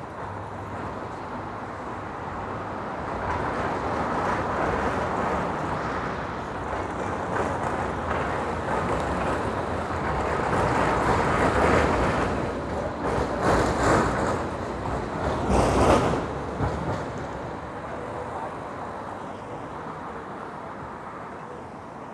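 ZET tram passing close, its steel wheels running along the rails and getting louder toward the middle. Several sharp knocks come about two-thirds of the way through as the wheels go over the junction's crossing rails, then the noise fades.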